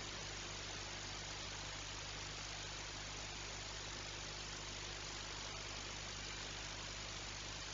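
Steady, even hiss with a constant low hum underneath, unchanging throughout, with no distinct events.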